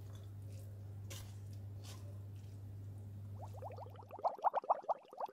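Spatula sliding fried flat rice noodles out of a wok onto a plate: faint soft squishing and scraping over a steady electrical hum. About three and a half seconds in, a fast run of short rising blips begins, and the hum stops soon after.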